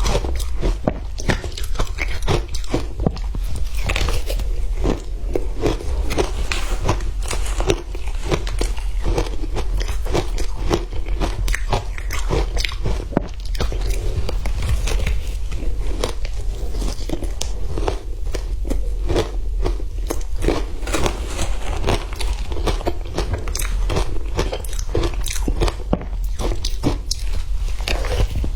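Frozen matcha ice being bitten and chewed close to the microphone: dense, irregular crunching, several crunches a second, with no pause, over a steady low hum.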